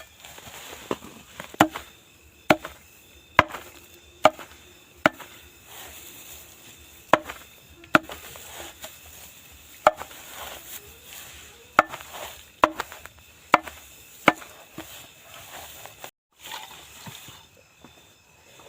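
Fodder being chopped with a blade: about a dozen sharp chops, roughly one a second, that stop about fourteen seconds in.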